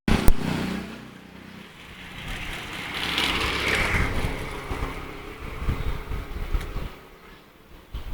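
Street traffic: a motor vehicle's engine running, with a passing swell of noise about three to four seconds in and scattered low knocks.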